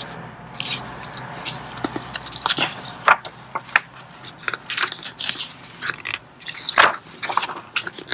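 Pages of a hardcover picture book being handled and turned: irregular paper rustles and crinkles, with a few sharper crackles about three and seven seconds in.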